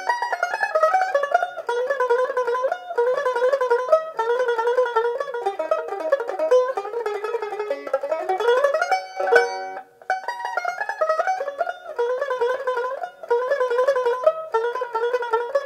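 Solo banjoline (banjo-mandolin) picked with a plectrum, playing a mazurka melody in quick notes. About nine seconds in, an upward run ends on a struck, ringing chord and a brief pause before the tune picks up again.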